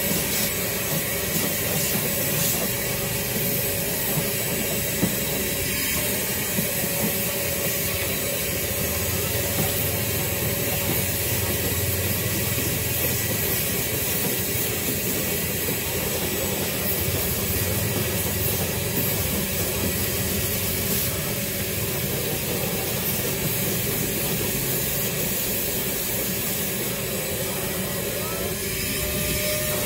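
Vacuum cleaner running steadily, a constant hiss with a steady whine, as its hose nozzle is worked over a mattress.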